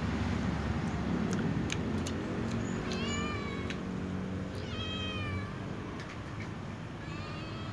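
A domestic cat meowing three times, each meow under a second long and about a second and a half apart, over a low steady rumble.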